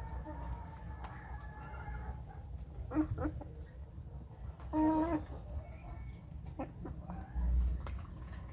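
Young naked-neck chickens clucking while they feed: a faint drawn-out call, then several short clucks, the loudest about halfway through. Scattered soft pecking taps and a dull low bump near the end.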